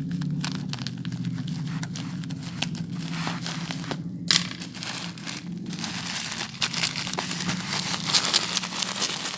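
Packaging being crinkled and torn open by hand in many irregular crackles, over a steady low hum.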